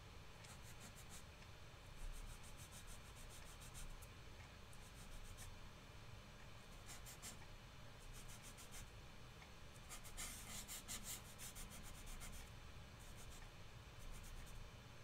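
Faint rubbing of a handheld eraser wiping marker lines off a whiteboard, in short back-and-forth strokes that come in runs and are busiest about ten seconds in.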